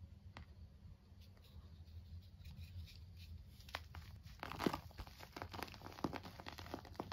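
A hand crushing a glitter-coated piece of purple reformed chalk into powder: dry crunches and crackles, a few light ones at first, then a dense run in the second half, loudest a little after the middle.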